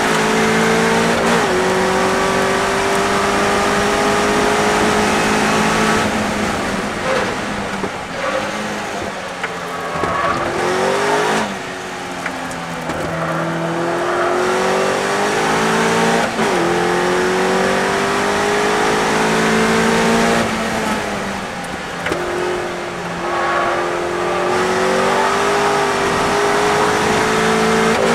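Westfield race car's engine heard from inside the open cockpit at racing speed. Its pitch climbs through the gears and drops sharply at each upshift. Twice the revs fall and jump about as it brakes and downshifts for a corner, then it pulls hard out again.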